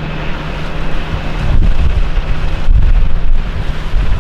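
Coast Guard search helicopter flying low, a steady low drone, mixed with heavy wind rumble on the microphone.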